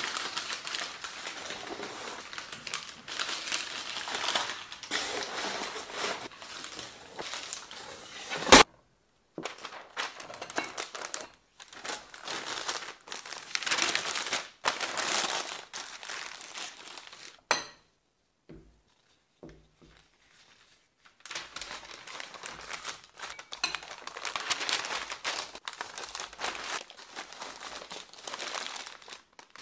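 Sheets of white packing paper crumpling and crinkling as dishes are wrapped by hand. About a third of the way in there is a single sharp knock, the loudest sound, and another short knock past the middle, followed by a few seconds of near quiet before the crinkling starts again.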